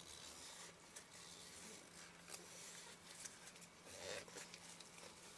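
Near silence: faint scratchy rubbing as the oily aperture assembly of a Nikkor 85mm lens is cleaned by hand with isopropyl alcohol, over a faint steady hum.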